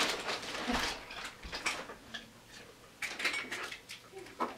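Irregular clicks, taps and rustles of small objects being picked up and handled on a cluttered desk, in two bursts: one at the start and another about three seconds in.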